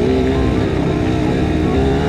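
Kawasaki KX85's 85 cc two-stroke single running under load, its pitch rising and falling with the throttle.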